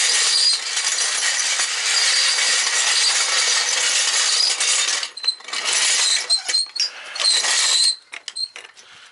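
Steel floor jack being rolled across a paver driveway, its wheels rattling over the stones. The noise is steady for about five seconds, then comes in shorter stop-start pushes, with a few light clanks near the end.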